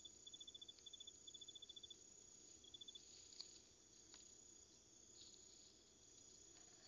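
Faint night insect chirping, cricket-like: short runs of rapid high pulses for the first two seconds and once more near three seconds, then only a faint hiss with a couple of soft clicks.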